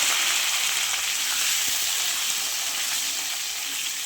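Diced potatoes sizzling as they fry in hot oil with cumin seeds in a kadai, a steady hiss that slowly dies down after they are dropped in.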